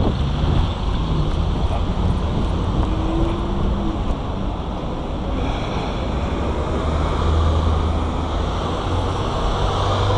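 City street traffic: a bus and cars running, with wind rumbling on the microphone as a steady low roar.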